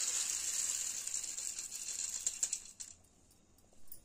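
Soaked white jowar (sorghum) grains and their soaking water poured from a pan into a stainless-steel mesh strainer: a steady rush of draining water and grains with many small rattling clicks, stopping abruptly about three seconds in.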